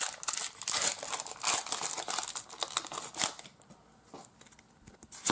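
Foil wrapper of a Pokémon booster pack crinkling and tearing as it is opened, a dense rustle for about three seconds, then a few light clicks as the cards come out.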